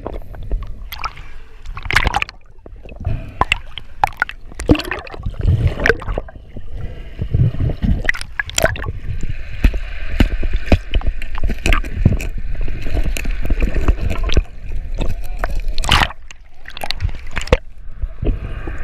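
Water sloshing and gurgling, with many sharp knocks and a steady low rumble.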